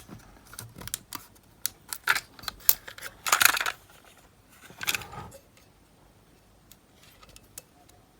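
Light clicks and small rattles of a Panasonic RQ-S60 cassette player being handled after its test playback is stopped: a run of short clicks over the first five seconds, the loudest about three and a half seconds in, then it falls quiet.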